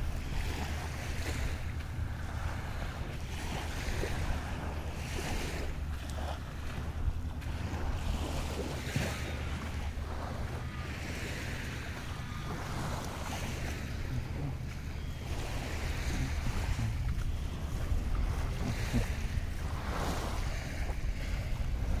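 Wind blowing on the microphone with a steady low rumble. Over it is a washing noise that swells and fades every few seconds.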